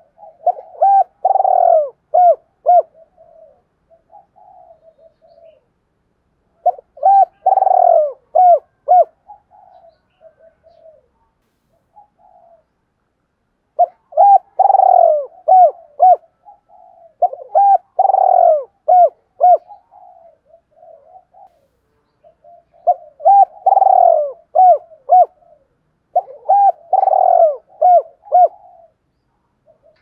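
Spotted dove cooing: six phrases of several arched coos each, a few seconds apart, with soft, broken low cooing between the phrases.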